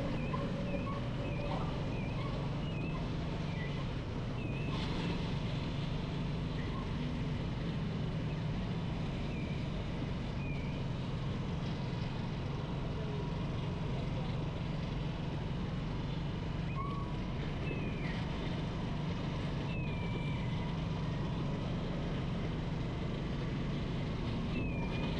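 Motorcycle riding in traffic: steady engine and road noise, with a few short, high chirps now and then.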